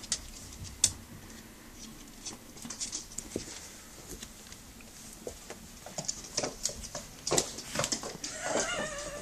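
A kitten's and a dog's paws scampering on a hard laminate floor in a small room: irregular light clicks and pattering, busier in the second half. Near the end comes a brief wavering whine.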